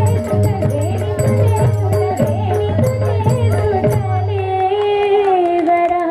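Marathi devotional gavlan: a woman's singing voice over harmonium, with drum and jingling percussion keeping a steady beat. About four seconds in the percussion stops, leaving the voice and harmonium holding the closing note.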